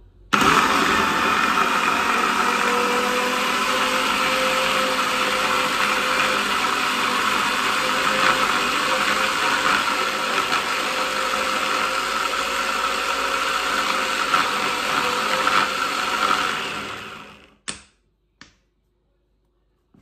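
Electric hand blender motor running on its chopper-bowl attachment, chopping parsley into pesto. It starts abruptly, runs steadily for about sixteen seconds, then winds down and stops, followed by two short clicks.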